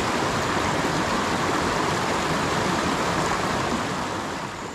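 Steady rushing of shallow river water running over rocks, fading out near the end.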